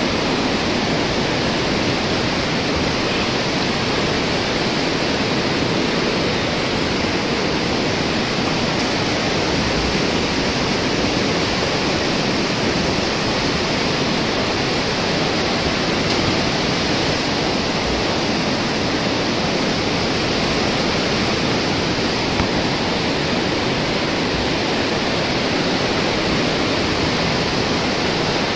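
Steady rush of fast-flowing river water, an even, unbroken noise.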